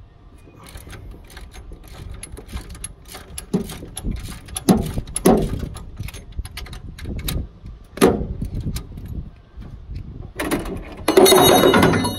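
Ratchet wrench and metal hand tools clicking and knocking while bolts are worked loose in a truck's engine bay during a head gasket teardown, with a few short squeaks and a louder burst of clatter near the end.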